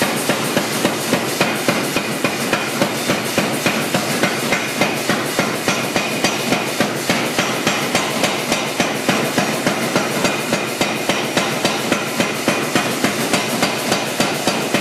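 Blu Max 110 power hammer striking a red-hot steel bar in a steady, fast rhythm of about three to four blows a second, over the machine's constant running noise.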